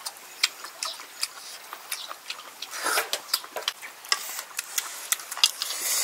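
Irregular light clicks and taps of snail shells and a metal spoon being handled while eating, with a few louder taps around the middle and near the end.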